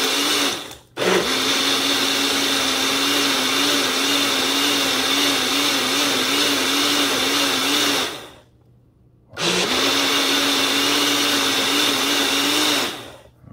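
Mainstays personal cup blender's motor running steadily at a held pitch, blending a cup of mostly liquid with a little ice. It is switched off and on at its button twice, with a short break about a second in and a longer one of about a second near eight seconds in, and stops near the end.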